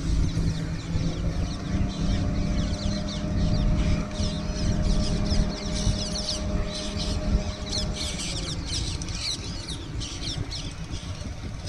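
A vehicle's engine humming steadily over a low rumble, the hum ending about eight seconds in. Many birds chirp throughout, busier toward the end.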